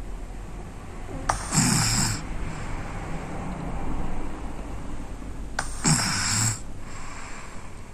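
A sleeping boy snoring: two loud snores about four seconds apart, with quieter breathing between.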